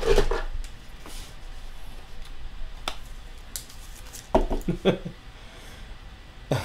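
Faint handling of a clear plastic card toploader: a couple of light clicks in a quiet room, with a short burst of a man's voice about four seconds in.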